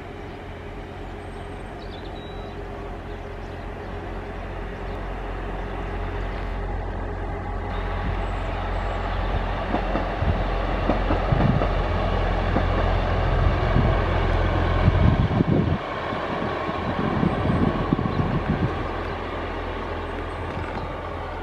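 Two-car diesel multiple unit passing: its engine drone builds as it approaches, wheels rumbling and clattering on the rails as it goes by, then easing off near the end.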